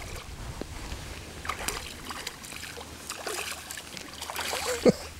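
Hooked largemouth bass splashing at the water's surface on the line, with water sloshing in uneven bursts, and one sharp knock near the end.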